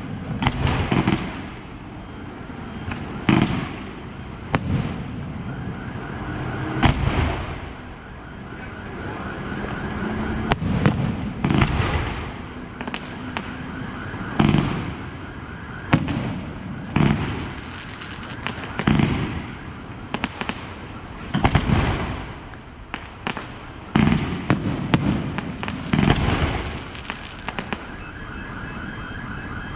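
Aerial fireworks bursting in quick succession, a sharp bang every second or two, each followed by crackling, over a continuous rumble of launches and bursts.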